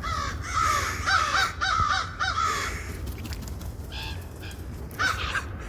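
Common ravens calling: a quick run of about seven short, hoarse croaks in the first two and a half seconds, then two or three more near the end.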